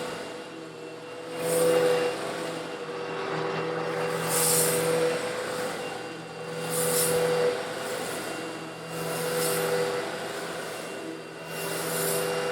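Old Eureka vacuum cleaner running steadily while it sucks up small coarse stone granules. About every two and a half seconds the rush swells into a hissing rattle as a batch of granules goes up the intake, five times over.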